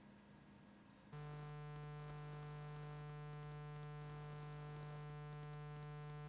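Steady electrical buzz with many overtones, switching on abruptly about a second in and cutting off abruptly at the end.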